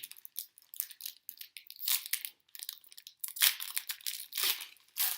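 Foil wrapper of a trading card pack crinkling and tearing as it is handled and opened, in irregular crackly bursts, the loudest about two and three and a half seconds in.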